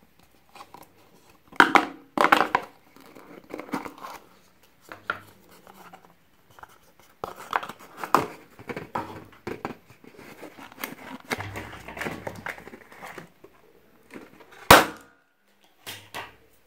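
A small cardboard gift box with a ribbon being handled and opened: irregular crinkling and rustling of card and ribbon, louder twice about two seconds in. Near the end comes one sharp knock, the loudest sound.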